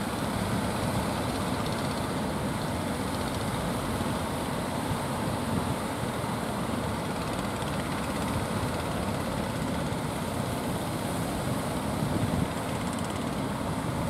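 Steady rumbling noise of strong wind buffeting the microphone, mixed with surf, with a brief louder moment about twelve seconds in.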